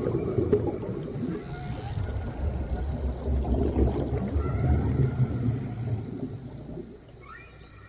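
Whale song: faint drawn-out pitched calls over a low, rumbling water noise, which fades down about seven seconds in.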